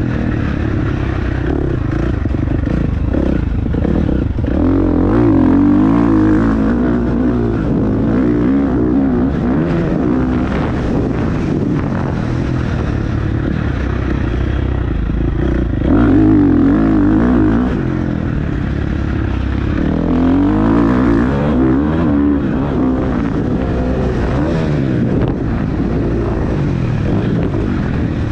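Engines running continuously, their pitch rising and falling as they rev, loudest in a surge about two-thirds of the way through.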